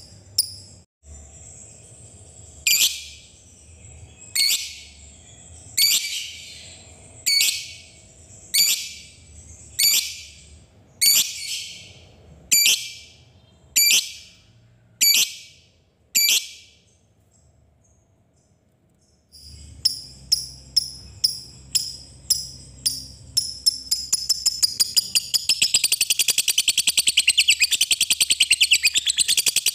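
Lovebird calling: sharp high chirps about every second and a half, then after a short pause the chirps speed up into a long, rapid continuous chatter, the song that keepers call ngekek.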